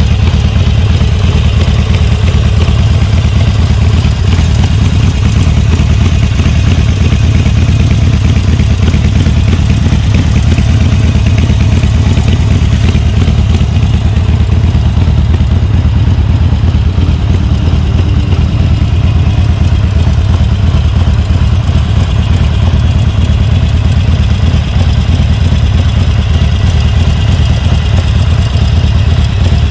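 Harley-Davidson Sportster Forty-Eight 1200's air-cooled Evolution V-twin engine idling steadily.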